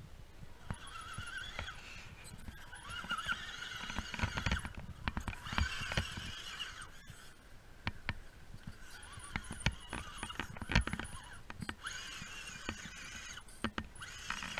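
Electric motor and gearbox of a radio-controlled scale crawler whining in spurts of a second or two as it is throttled up a muddy slope. Sharp knocks from the tyres and chassis striking dirt and roots are heard between and during the spurts.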